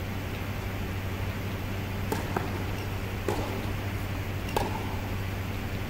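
Tennis balls struck by rackets and bouncing on an indoor hard court: a serve and rally heard as sharp pops about two, two and a half, three and a half and four and a half seconds in, the last the loudest. A steady low hum lies under it.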